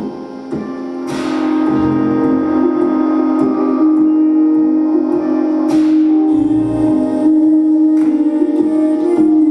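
Music: sustained held chords with two bright crashes, about a second in and again near six seconds, getting louder after the first one.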